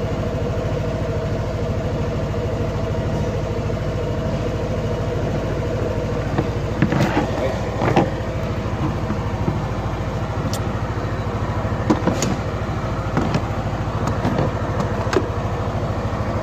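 Yamaha NMAX V1 scooter's single-cylinder engine idling steadily, with a few light clicks and knocks about seven to eight seconds in and again around twelve seconds in from handling the multimeter probes and battery wiring.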